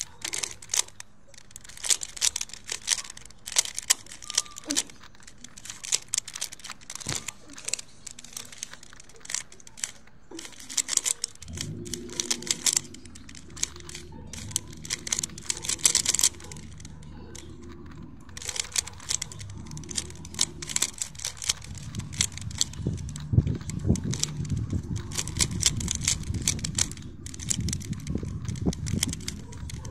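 A 3x3 Rubik's cube being turned fast by hand: a rapid run of small plastic clicks and rattles as the layers snap round. A steady low rumble joins underneath about twelve seconds in.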